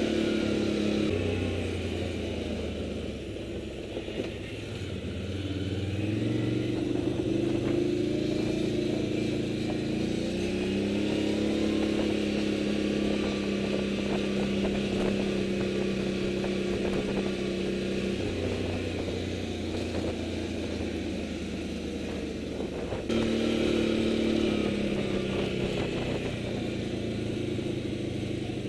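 Motorcycle engine running at low speed, its pitch stepping and gliding up and down as the revs change.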